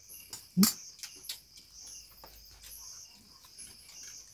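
Insects, crickets by the sound of it, chirping steadily in a high pulsing trill, with one short voice sound about half a second in and small clicks from eating.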